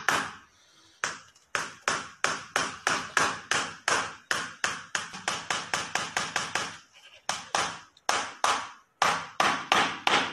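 Small hammer tapping repeatedly on a hard surface: a long run of sharp taps, about three a second, with a short break about seven seconds in.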